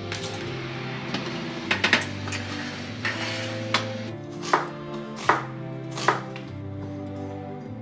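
Kitchen knife chopping on a cutting board: about six separate, irregular strokes, with gentle background music underneath.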